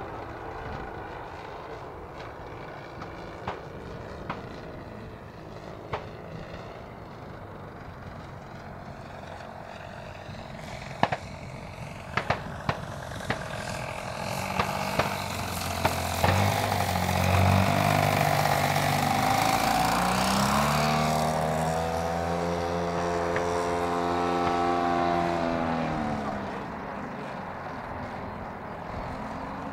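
The large gasoline engine and propeller of a 50% scale clipped-wing Piper Cub RC plane droning in flight. It is faint at first, with a few sharp clicks near the middle, then grows louder as the plane comes past. In the second half the engine note climbs, holds and then drops away.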